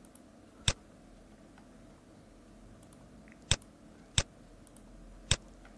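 Four sharp single computer mouse clicks, spaced unevenly a second or so apart, over faint room tone.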